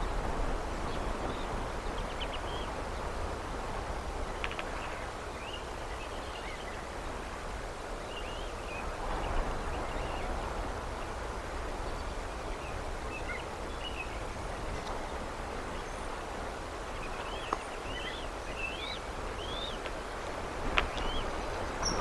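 Steady wind noise on an outdoor microphone, with scattered short, high bird chirps that become more frequent in the second half, and a couple of sharp clicks near the end.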